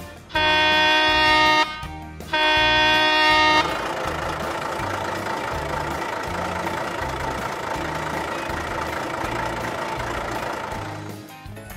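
Two long blasts of a truck horn, then a truck engine running steadily, over quiet background music.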